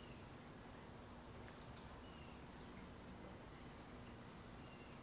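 Near silence: faint outdoor ambience with a scatter of short, high bird chirps over a low steady hum.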